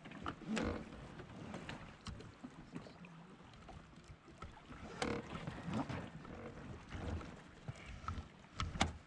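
Scattered knocks, bumps and rustles on a fishing kayak as the angler shifts about and handles her gear, with the sharpest pair of knocks near the end.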